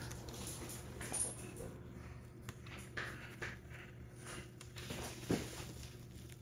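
Pet nail clippers trimming the tips of a six-week-old French bulldog puppy's claws: a few soft, separate clicks spread over several seconds, against low room hum.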